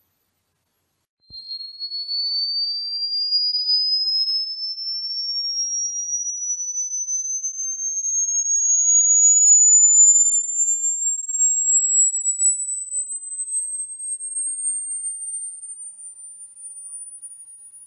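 Electronic pure sine tone played as a rodent-repellent sound. A faint very high tone stops about a second in; then a new tone starts at a lower pitch and slowly, steadily sweeps upward to a very high pitch.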